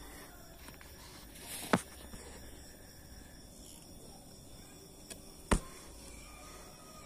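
Two sharp clicks about four seconds apart over a faint, steady background.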